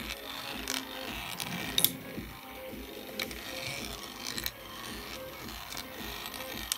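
Small electric motor running a belt-driven 3D-printed plastic marble lift, with steel balls giving irregular sharp clicks and rattles as they roll and drop through the plastic tracks.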